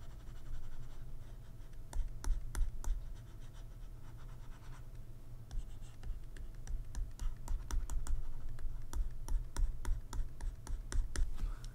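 Irregular light clicks and scratches of a pen stylus working on a drawing tablet while erasing: a few around two seconds in, then a denser run from about halfway to near the end.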